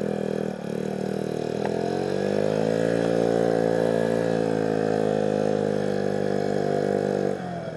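Kymco Agility 50 scooter engine, running on a new cylinder after a seizure, accelerating: its pitch climbs for about a second and a half, then holds steady at speed and eases off near the end.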